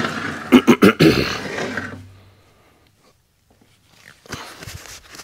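Hand tools knocking and rattling against an automatic transmission case: a cluster of sharp knocks in the first two seconds, then a pause, then a few lighter taps near the end.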